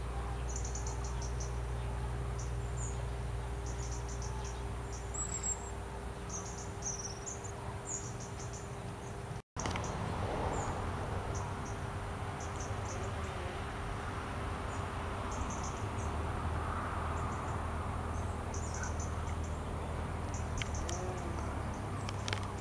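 Insects chirping: short, rapid, high-pitched trills that repeat about once a second over a steady low hum. The sound drops out for a moment about halfway through.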